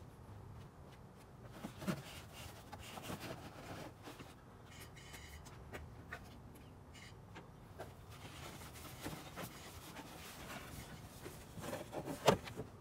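Handling noise from a wiring harness being laid along the firewall and pushed under the cowl: faint rubbing and scattered light knocks, with one sharper knock near the end.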